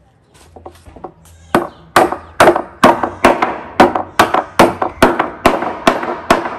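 Hammer driving nails through small wooden blocks into a wooden plank: a few light taps, then about a second and a half in, a run of a dozen or so sharp, evenly paced strikes, two to three a second.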